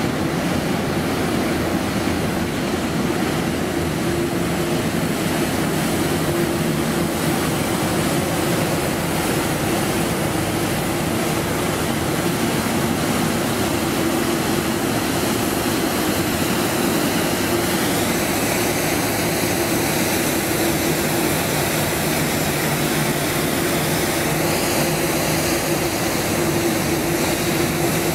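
Scania P270 street sweeper truck working: its diesel engine and machinery run steadily while the side broom brushes grit along the gutter. A high whine climbs in pitch about two-thirds of the way through and again near the end.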